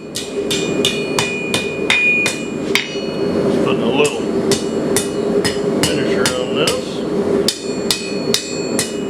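Blacksmith's hammer striking hot steel on an anvil, about two to three ringing blows a second with a short pause about three seconds in, while the end of a bar is forged to shape. A steady rushing noise runs underneath.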